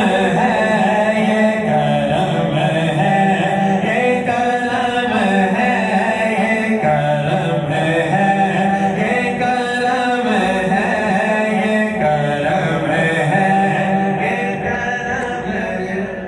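Male devotional chanting without instruments, in long held notes that step up and down.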